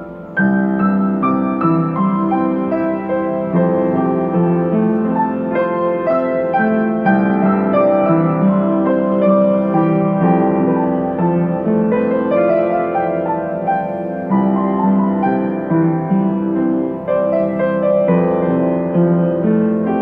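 Piano music: a run of single notes over held chords, coming in louder about half a second in.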